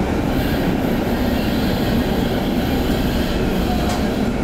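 1960 PCC tram running along the track, heard on board: a steady low rumble of the moving tram with no separate knocks or squeals.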